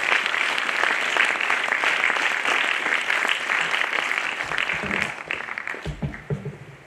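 Audience applauding, dying away over the last couple of seconds, with a few low thumps near the end.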